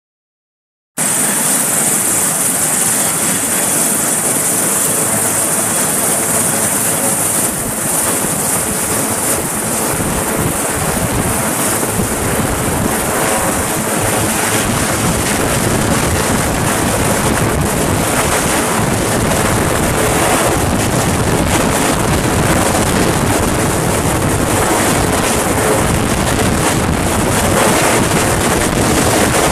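Sikorsky S-61 helicopter in flight: the loud, steady noise of its rotors and twin turbine engines, cutting in suddenly about a second in.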